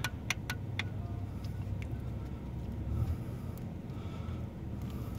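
A few light metallic clicks, mostly in the first second, as a small bolt is spun down by hand onto the speed sensor, over a steady low rumble.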